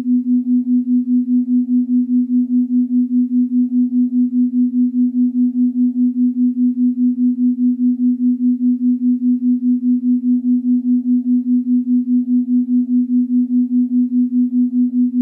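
Electronic meditation tone: a steady low hum that pulses evenly, about four to five times a second, with faint higher notes drifting above it.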